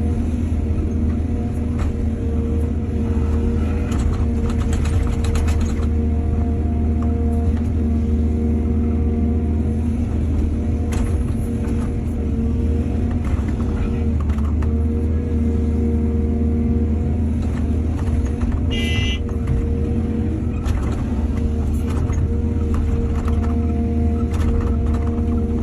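Excavator diesel engine running steadily under load, with scattered knocks and scrapes from the digging. A brief high-pitched tone sounds about two-thirds of the way through.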